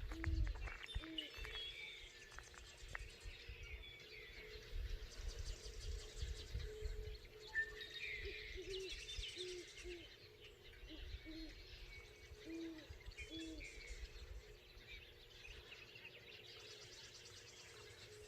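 Owls hooting: short, low hoots in pairs and threes, repeating every second or so. Blackbirds chatter and chirp over them as they settle for the night, with a low rumble underneath.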